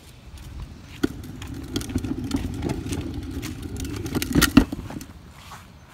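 A car engine running, swelling over a few seconds and then fading, with footsteps and a few sharp knocks, the loudest near the end.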